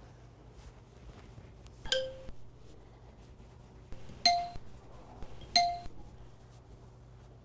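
A ceramic dinner plate clinks and rings briefly three times as small raw meatballs are set down on it: once about two seconds in, then twice more about a second apart. A faint steady low hum runs underneath.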